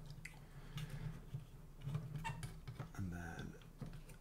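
Scattered light clicks and scrapes of small plastic and metal parts being handled and fitted together on a cassette deck mechanism during reassembly, over a steady low hum.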